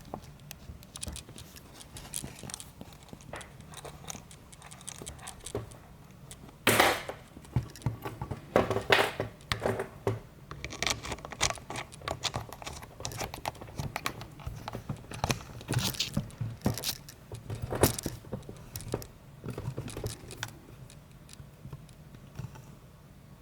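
Small metal lock parts and tools clicking and rattling as an Abloy Profile disc cam lock is handled and worked apart: scattered light clicks and jingles, with a louder clatter about seven seconds in and further bursts later.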